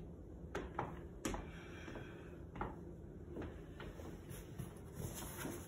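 Scattered, uneven knocks and taps: dress-shoe footsteps on a hardwood floor and the handling of papers and a cardboard box, in a small quiet room.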